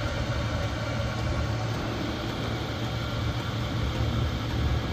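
Chinese 5 kW diesel air heater running with a steady hum from its blower fan and burner, turned down to its lowest setting and ramping down.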